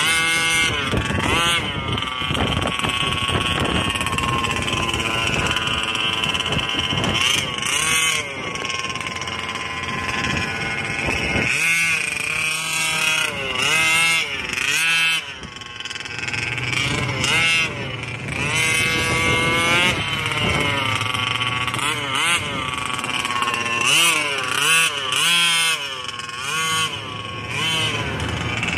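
Losi 5B buggy's Scott Finlay 34cc reed-case two-stroke gas engine revving, its pitch rising and falling again and again as the throttle is worked.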